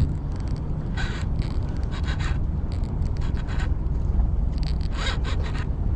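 Baitcasting fishing reel giving short runs of rapid clicking, several times, over a steady rumble of wind on the microphone.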